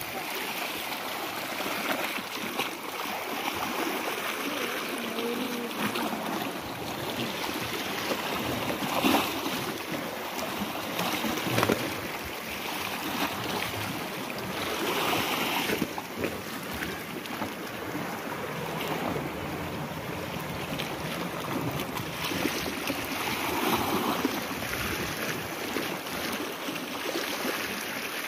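Sea waves washing against shore rocks, with louder surges of surf now and then.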